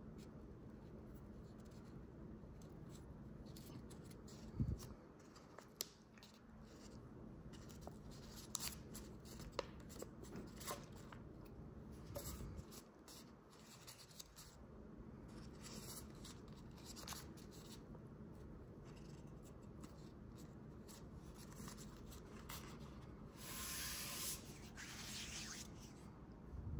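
Origami paper being folded and creased by hand, heard faintly: soft rustles with scattered crisp crinkles and taps over a low steady background, and a longer, louder rustle near the end.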